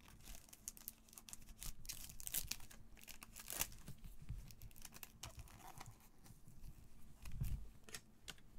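Clear plastic card sleeve crinkling and rustling as gloved hands handle it, loudest in the first half, with a soft thump near the end.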